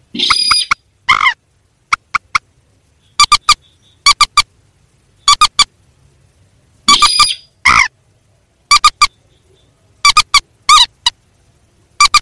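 Rails calling: short, sharp, pitched calls come in quick clusters of two to four, repeated every second or so. Twice a longer, harsher squawk breaks in, once just after the start and once about seven seconds in.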